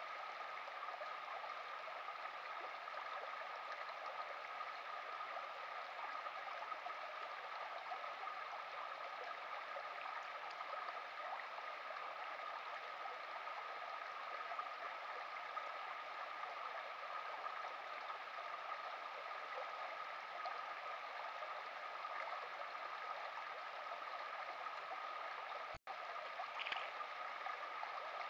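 A small burn running steadily over stones with a constant gurgle. The sound cuts out for an instant near the end.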